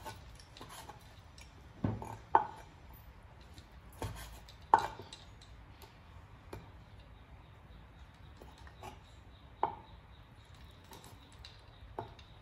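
Steel cleaver slicing raw meat on a wooden cutting board, the blade knocking on the board with each cut: a handful of sharp knocks at uneven intervals, the loudest about two and five seconds in.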